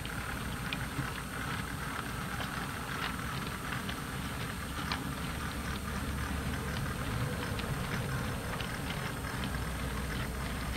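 Model railway goods wagons rolling along the track: a steady low rumble with many small irregular clicks from the wheels over the rail joints.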